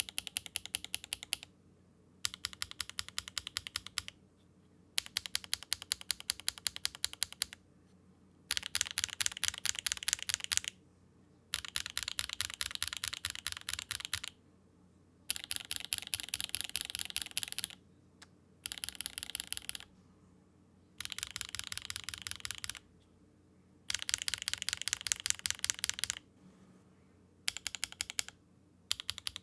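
Fast typing on a mechanical keyboard fitted with HMX switches, the keys clacking many times a second. The typing comes in short runs of one and a half to three seconds with brief pauses between, as one switch type after another is sound-tested.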